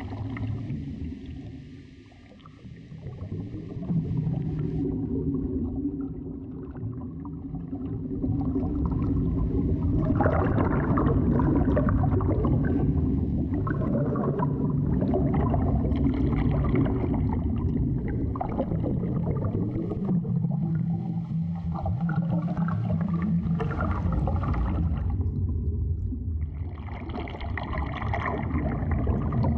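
Underwater ambience: a low steady rumble with gurgling water, dipping briefly about two seconds in and growing fuller from about ten seconds on.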